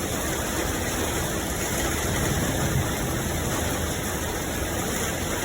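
Tour bus engine running steadily at idle, a constant low rumble with no change in pitch.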